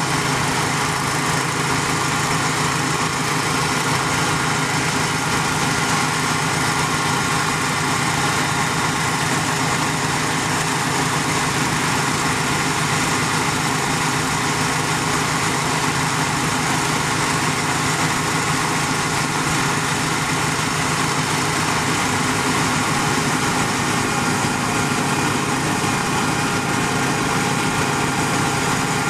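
Engine running steadily at constant speed, powering a three-point-hitch hydraulic well-drilling rig, with no change in pitch or load.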